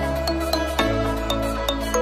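Background music: quick, light struck notes over held bass chords, the chord changing about a second in.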